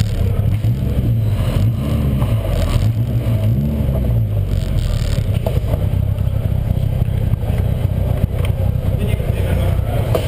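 Caterham Seven's 1.6-litre four-cylinder engine running at low revs, heard from on board as the car rolls slowly in off the pit lane, the revs rising and dipping slightly a few times in the first seconds before holding steady.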